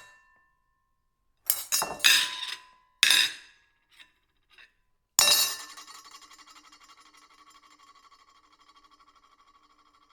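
Ceramic plates clinking against each other: a cluster of sharp clinks between about one and a half and three seconds in, then two faint ticks. A louder strike just past five seconds leaves a ringing tone that pulses quickly as it slowly fades away.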